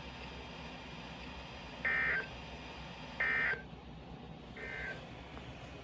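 Three short electronic beeps, each about half a second long and about 1.4 seconds apart, the last one fainter, over a steady low hum and hiss.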